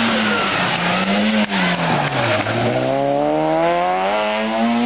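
Rally car engine at high revs on a stage: its pitch wavers and falls about halfway through as the driver lifts off, then climbs steadily over the last couple of seconds as the car accelerates hard.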